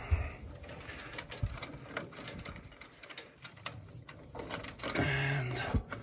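Scattered light clicks and rustles of furnace wiring and plastic harness connectors being handled by hand.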